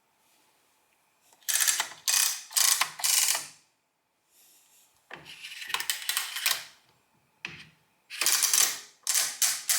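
The mechanism of a 1947–49 Add-O-Matic coaxial-wheel adding machine, ratcheting as its number wheels and clearing core are worked, in four runs of rapid clicks separated by short pauses.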